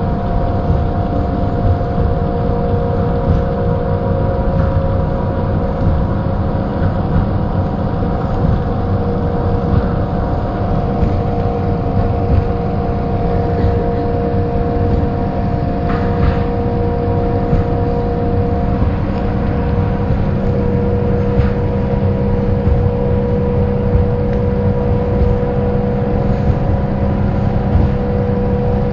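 A 1995 Mercedes-Benz O408 bus under way at a steady speed, its OM447hLA turbodiesel inline-six running with a deep rumble. Over it sits a steady gear whine of several tones, the hub-reduction axle whine the bus is known for; one of the tones fades out about two-thirds of the way through.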